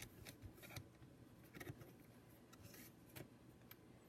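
Faint scattered ticks and light scraping of plastic as a laptop's screen bezel is pried loose, with no loud snap.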